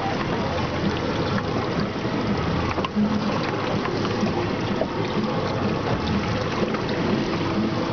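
Water splashing and trickling steadily around a boat on the open sea, with a faint low hum underneath.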